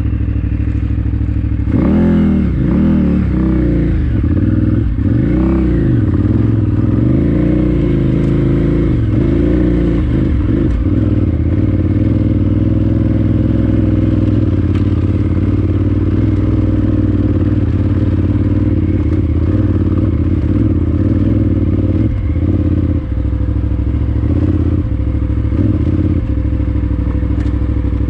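KTM 990 Adventure R's V-twin engine with an Akrapovič exhaust, ridden off-road. The revs rise and fall again and again for the first ten seconds or so, then the engine runs at a steadier pace.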